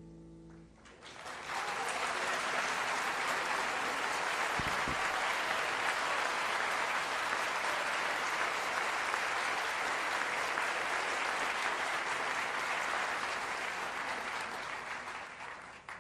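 The last held chord of a button accordion (bayan) and piano dies away, then the audience applauds steadily for about fifteen seconds, tailing off near the end.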